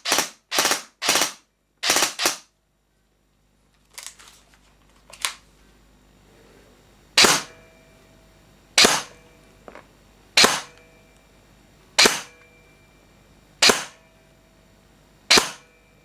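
ASG CZ Scorpion EVO 3 A1 airsoft electric gun firing single shots, each a short sharp crack. There is a quick string of five shots, a short break, then six shots spaced about a second and a half apart.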